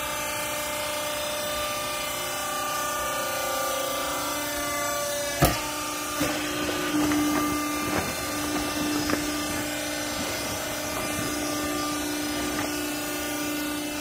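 Hydraulic clothing baler's power unit running with a steady hum. A single sharp metal clank about five seconds in, then a few lighter knocks and rustles as the chamber is worked.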